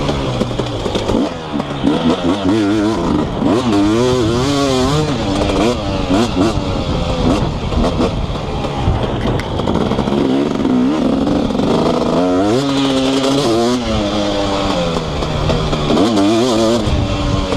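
2018 KTM 250SX single-cylinder two-stroke with an FMF Powercore 2 silencer, ridden hard around a motocross track. The engine revs up and drops back again and again through gear changes and corners, each rise a climbing whine.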